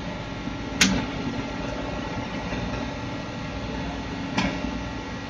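Steady electrical hum of a stress-relieving heat-treatment machine's control panel, broken twice by a sharp click, the first near the start and the second about three and a half seconds later.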